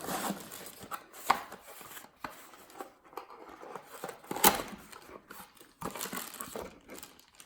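Plastic packaging rustling and crinkling as parts are unwrapped, with scattered clicks and knocks of hard plastic being handled; two sharper clicks stand out, about a second in and midway.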